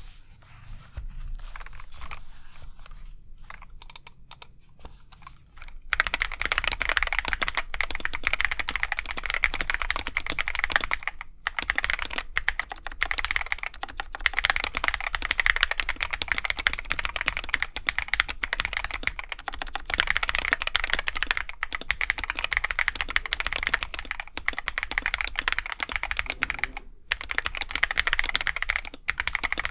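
Typing on a Feker IK75 mechanical keyboard with Akko CS Jelly Pink linear switches. Slow scattered keystrokes for the first few seconds, then fast continuous typing with a couple of brief pauses.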